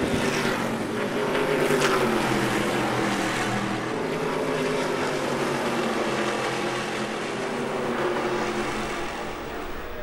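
Engines of several Stadium Super Trucks racing in a pack, their pitch rising and falling as they accelerate and shift.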